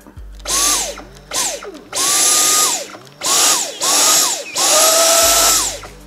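Dyson V10 cordless vacuum's motor switched on and off six times in quick succession. Each burst is a rush of air with a high whine that spins up fast, holds and winds down as the trigger is released. The new trigger button is being tested and works.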